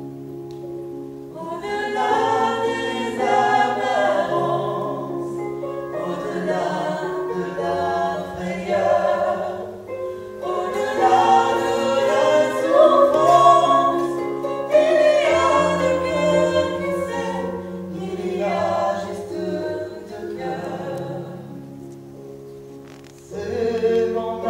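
Musical-theatre number: a choir of voices singing over sustained instrumental chords, the voices coming in about a second and a half in and swelling again near the end.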